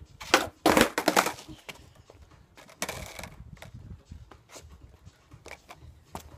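Skateboard on concrete during a trick attempt: a sharp pop about a third of a second in, then a loud clatter of the deck and wheels slapping down and rolling about a second in. A shorter rattle of the board about three seconds in, and a few light knocks later.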